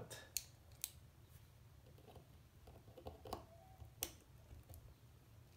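A few faint, sharp clicks at irregular spacing from a cannon pinion remover's steel jaws being worked against a watch movement held in a movement holder. The tool is not getting a grip on the cannon pinion.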